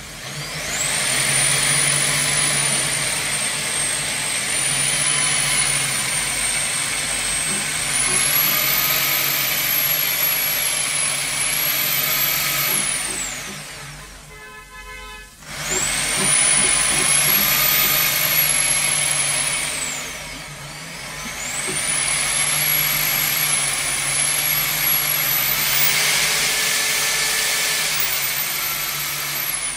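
Pressure-washer drain jetter running, a loud steady hiss with a high motor whine that rises and falls, as the jetting hose clears a clogged floor drain. It winds down and stops briefly about halfway through, then starts again, and dips once more a few seconds later.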